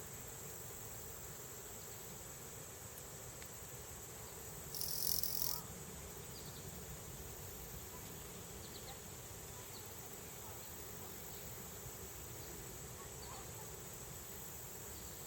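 Steady, high-pitched chorus of crickets and other insects, with a brief louder hiss about five seconds in.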